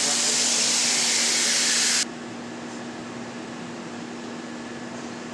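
A loud steady hiss cuts off abruptly about two seconds in. It leaves a quieter steady hum of factory machinery with a constant low tone.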